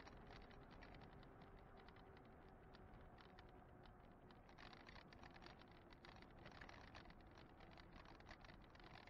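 Faint, muffled riding noise from an e-bike on the move: rapid, irregular light clicking and rattling over a faint steady whine.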